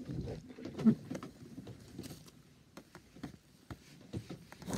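Shuffling and rustling of a person moving right beside the phone, with scattered light knocks and taps and one louder thump about a second in.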